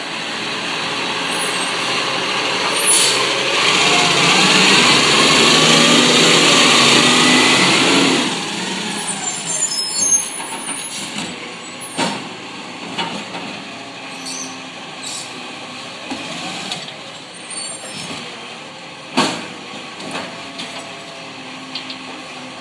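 Automated side-loader garbage truck working: the truck is loud for the first several seconds, with a whine rising and falling in pitch. After that comes a quieter engine idle, broken by sharp clanks and bangs as the mechanical arm lifts and tips wheelie bins into the hopper. The loudest bang comes a few seconds before the end.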